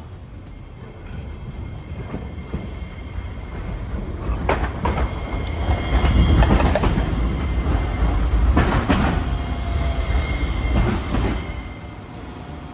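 A Hiroshima Electric Railway 5100-series Green Mover Max low-floor tram approaching and rolling past close by. It grows louder, with a low rumble and a few sharp clacks as its wheels cross the track, then drops away near the end.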